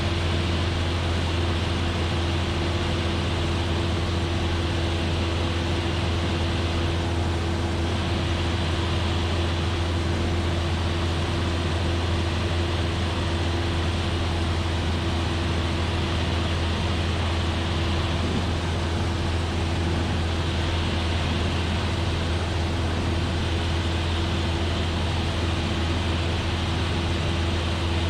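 Steady drone of a Cessna 172F's engine and propeller in level cruise, a deep even hum with a steady higher tone over a hiss of noise, unchanging throughout.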